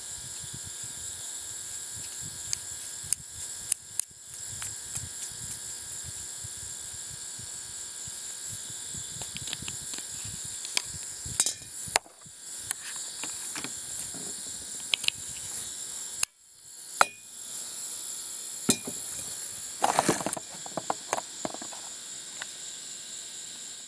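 Steady high-pitched background hiss with scattered sharp clicks and knocks, the loudest a quick cluster about twenty seconds in.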